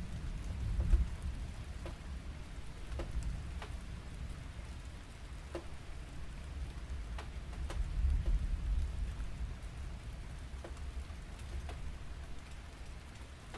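Thunder rolling: a long, slow low rumble that swells about a second in and again around eight seconds, then dies away toward the end, with scattered sharp ticks over it.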